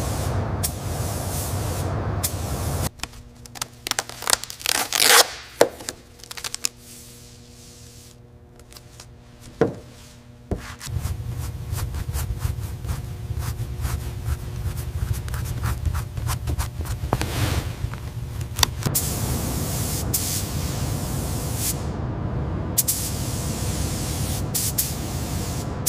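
Paint spray gun hissing in long steady bursts, with a quieter stretch of small scraping, rubbing and clicking sounds after the first few seconds.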